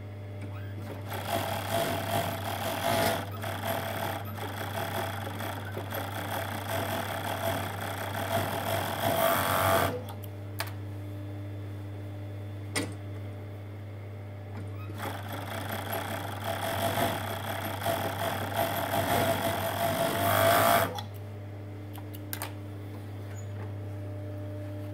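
Industrial four-thread overlocker (Juki MO-6714S) stitching the edge of knit fabric in two runs, the first about nine seconds long and the second about six, with a pause between; a steady low hum sits underneath.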